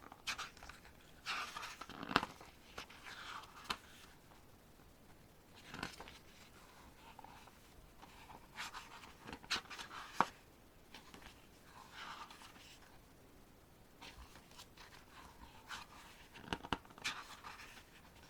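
Pages of a K-pop album's photobook being turned and handled: scattered soft paper rustles and small clicks every second or two.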